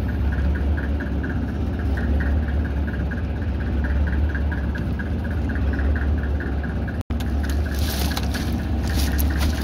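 Boat engine running steadily with a regular mechanical ticking. After a brief dropout about seven seconds in, a higher hiss joins the engine.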